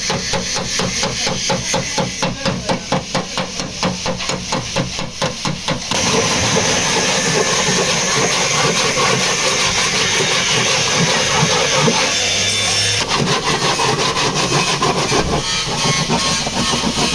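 Rapid, evenly spaced hammering on a car's sheet-metal body panel during dent repair. About six seconds in it gives way to a continuous harsh rasping noise for several seconds, and then the rapid hammering resumes.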